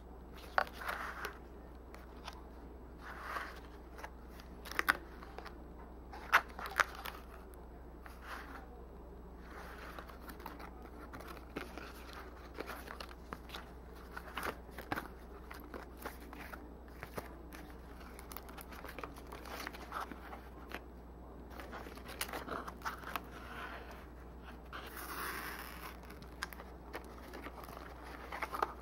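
Stiff folded paper of a handmade book rustling and crackling as hands flex open and turn its triangular folded panels, with a few sharper snaps in the first several seconds.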